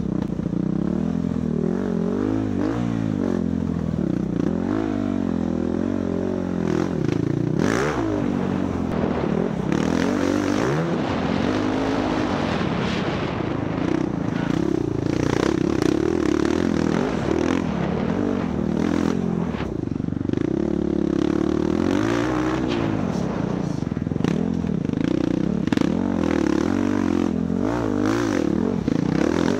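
Dirt bike engine ridden hard off-road, its revs rising and falling every second or two through throttle and gear changes. Rattling and scraping from the bike over rough ground, with occasional sharp knocks, one louder about eight seconds in.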